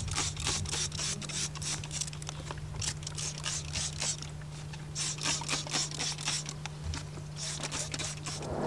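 Trigger spray bottle of scent-eliminator spray being pumped in quick spritzes, several short hissing sprays in a row, in groups repeated every few seconds, over a steady low hum.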